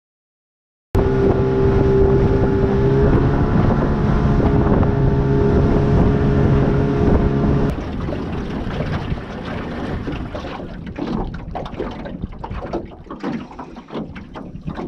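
Small boat's outboard motor running steadily for several seconds. It ends abruptly about eight seconds in, giving way to wind buffeting the microphone and the sound of water around the boat.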